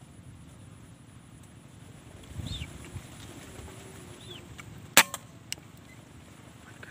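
A single sharp shot from a scoped air rifle about five seconds in, followed by two faint clicks.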